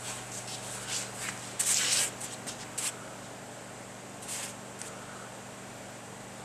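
Paintbrush scrubbing soapy leak-test solution onto a cast-iron Ford Model A engine block: a run of short, scratchy brush strokes in the first three seconds, loudest about two seconds in, and one more a little after four seconds.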